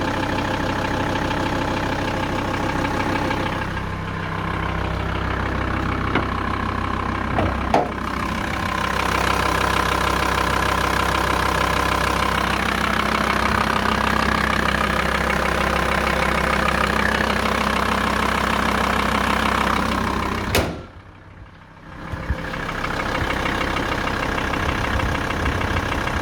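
Volkswagen T4 Transporter engine idling steadily with a rattle at idle. About twenty seconds in there is a sharp click and the sound drops much quieter for about a second before the idle returns.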